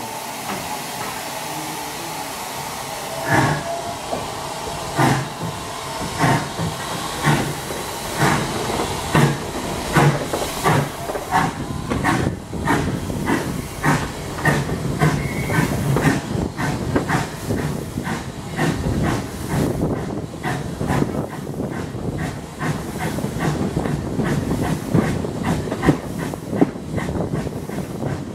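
Steam locomotive pulling away with its train: a steady hiss of steam, then exhaust beats that start about a second and a half apart and quicken steadily to several a second as the train gathers speed.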